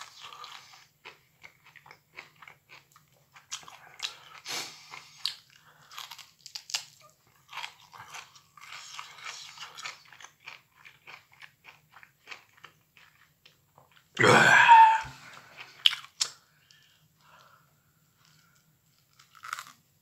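Close-up chewing and crunching of microwaved broccoli: many short crisp crunches with wet mouth sounds. About fourteen seconds in, one loud short vocal noise from the eater, with crunching starting again near the end.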